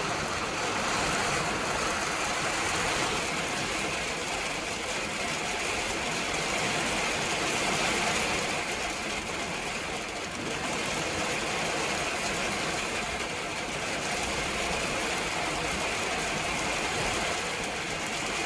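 Rain shower falling steadily: an even hiss that holds without breaks.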